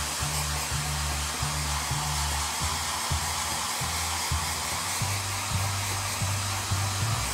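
Handheld Conair 1875 hair dryer blowing steadily on the wet fur of a plush toy, with background music and its bass line underneath.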